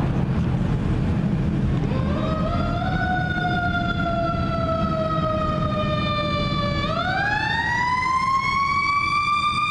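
A fire engine's Federal Q mechanical siren winds up about two seconds in, then coasts slowly down in pitch. About seven seconds in it spins up again with a rising wail that is still climbing at the end. Under it is a low rumble of traffic.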